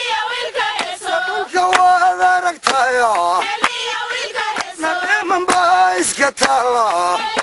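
Male voices singing a melodic chant with long held notes that slide in pitch, and sharp clicks scattered through.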